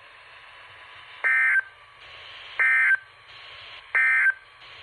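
Three short bursts of warbling EAS/SAME digital data tones over weather radio, each about a third of a second and about 1.4 s apart. This is the end-of-message code that closes an emergency alert broadcast, heard over a faint steady radio hiss.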